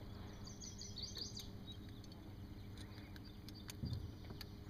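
A small bird chirping a quick run of high notes from about half a second to a second and a half in, over a low steady background rumble. A few faint clicks follow as pliers work a hook out of a northern pike's mouth, with a soft thump near the end.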